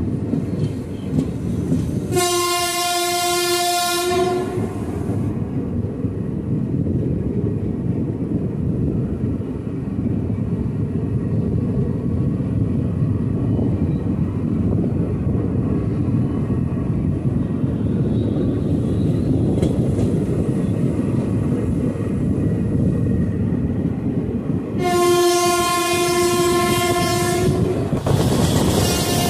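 Indian Railways train running along the track, a steady rumble of wheels on rails heard from the coach. The train's horn sounds twice: a blast of about two seconds a couple of seconds in, and a slightly longer one near the end.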